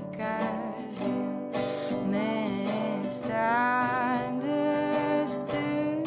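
Background music: a gentle song with acoustic guitar and a sung melody that holds wavering notes in the middle.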